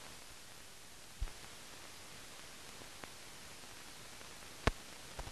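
Steady hiss of an old film soundtrack, broken by a few short sharp clicks: one about a second in, a faint one near three seconds, and a louder pair near the end.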